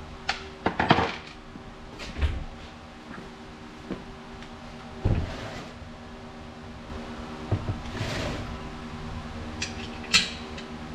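Scattered metal clinks, knocks and scrapes of bolts, washers and a caster being handled and fitted against a steel engine-hoist base, with a sharp click near the end. A steady low hum runs underneath.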